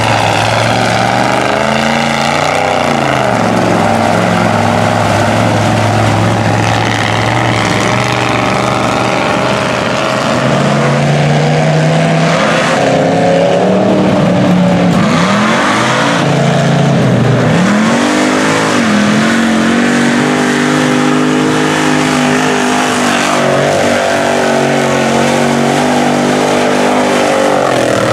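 Mud trucks on oversized tractor tires revving hard as they churn through a mud pit. The engine pitch climbs and drops several times, then holds high and loud through the second half.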